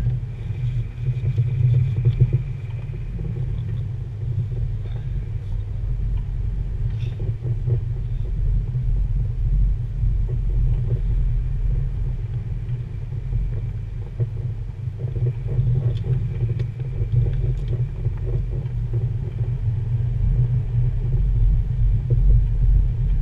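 Low, steady rumble of a car heard from inside its cabin as it moves off slowly, with a few faint clicks.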